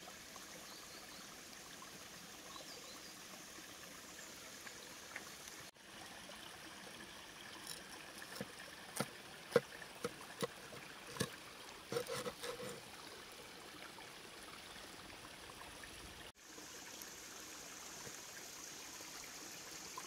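A large knife cutting through a crisp breadcrumb-coated Scotch egg on a wooden board: a run of sharp crunches and knocks for about five seconds midway. Under it a stream runs steadily.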